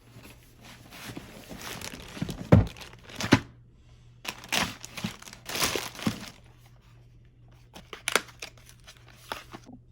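A delivery package being opened by hand: packaging crinkling and tearing in irregular bursts, with a sharp knock about two and a half seconds in and a few short clicks near the end.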